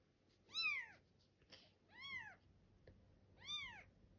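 Young Bengal kittens mewing: three thin, high-pitched mews about a second and a half apart, each rising and then falling in pitch.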